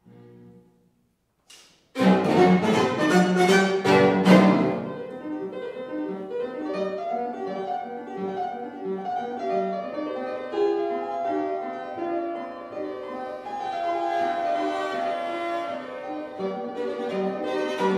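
Piano trio on period instruments, fortepiano with gut-strung violin and cello, playing classical chamber music. After a soft note and a short pause, all three come in loudly about two seconds in with a run of strong accented chords, then carry on more softly in continuous playing.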